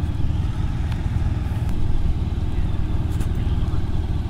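Motorcycle engine idling steadily with a low, even hum.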